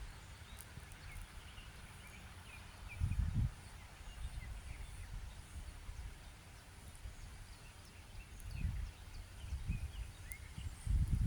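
Quiet outdoor ambience: wind rumbling on the microphone in gusts, with faint short bird chirps.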